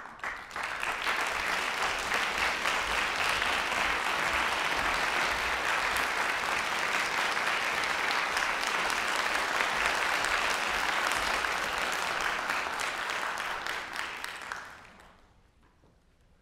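Audience applauding in a recital hall. The clapping starts at once, holds steady, and fades out about two seconds before the end.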